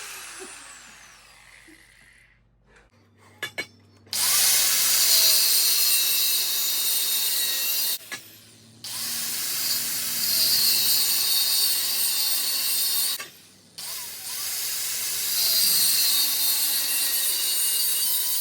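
Power tool with an abrasive cutting disc cutting 40x40 steel box section in three loud bursts of several seconds each, with short pauses between. A tool dies away at the start, and two sharp clicks come just before the first cut.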